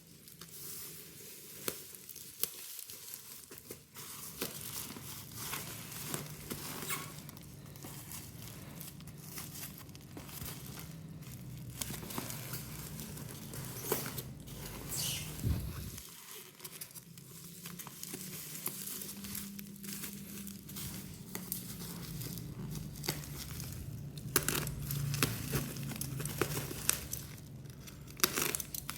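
Packaging being crinkled and handled by hand, with scattered sharp crackles and small knocks throughout.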